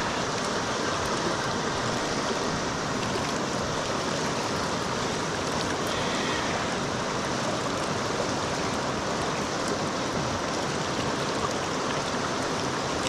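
River current rushing steadily, an even wash of flowing water.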